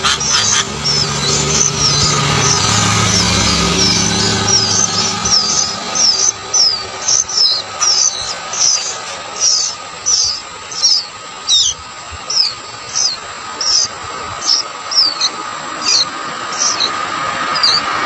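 Sooty-headed bulbul nestlings begging: a long run of short, high chirps, each slurring downward, coming fast at first and slowing to about one or two a second.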